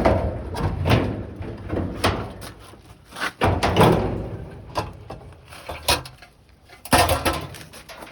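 Irregular clunks, knocks and scraping rattles of a dryer's panels and parts being handled and moved during teardown, loudest a little past halfway and again about seven seconds in.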